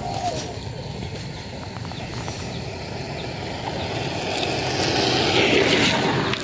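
A motor running steadily, growing louder over the last two seconds, with a few light handling clicks near the start.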